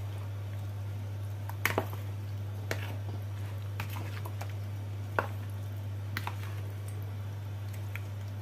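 A metal spoon tossing raw chicken wings in a wet marinade in a bowl: soft squishing with scattered clicks of the spoon against the bowl, the loudest a quick pair a little under two seconds in and another at about five seconds. A steady low hum sounds underneath.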